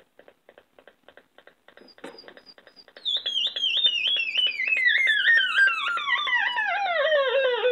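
Homemade dual-oscillator, Atari-punk-console-style noisemaker played through a computer speaker's amplifier. It gives faint rapid clicking at first, then about three seconds in a loud electronic squeal of quick repeated chirps whose pitch falls steadily as the oscillator knob is turned down.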